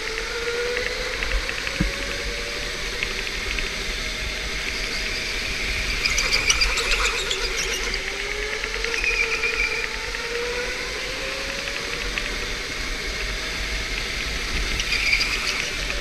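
Electric go-kart running flat out, heard from on board: the motor's whine rises and falls in pitch with speed, over a steady hiss of tyre and air noise. Tyre squeal comes and goes through the corners, most strongly about six seconds in and again near the end.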